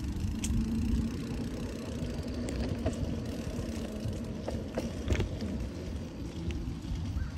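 Bicycle ride on an asphalt path heard from the rider's phone: a steady low rumble of tyres and wind on the microphone, with a few sharp clicks and ticks in the middle.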